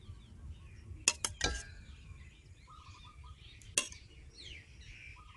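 Duck eggs cracked on the rim of a stainless steel bowl and dropped into flour: a quick cluster of sharp clicking taps about a second in and another single tap near four seconds. Birds chirp in the background.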